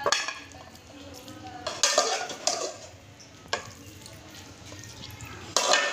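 A metal spoon scraping and scooping cooked pea pulao in an aluminium pot while it is served onto a plate, knocking against the pot several times.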